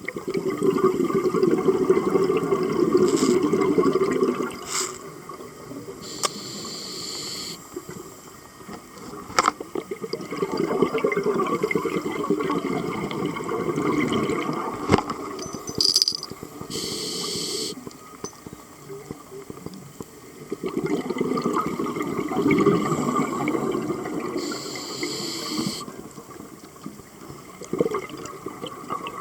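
Scuba diver breathing through a regulator underwater: long gurgling bursts of exhaled bubbles alternate with shorter hissing inhalations, several breaths in a slow, even cycle.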